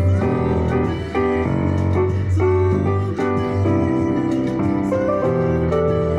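Electronic keyboard played with both hands: held chords over a low bass line, the harmony changing every second or so.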